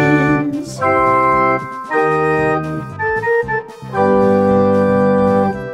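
Short organ jingle: a run of held chords with brief breaks between them, the last and longest one ending near the end. It is a segment sting announcing ratings.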